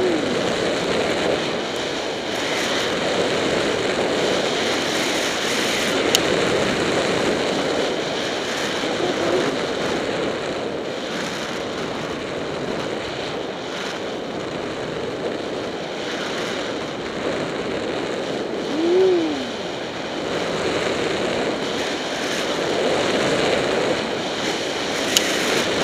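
Steady rushing noise of skis running through deep powder snow, with wind buffeting a helmet-mounted action camera's microphone. About nineteen seconds in there is a brief rising-then-falling tone, and there are two sharp clicks, one early and one near the end.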